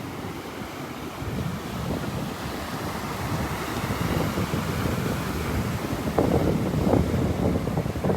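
Wind buffeting the microphone: a steady low rushing rumble, with stronger gusts about six and seven seconds in.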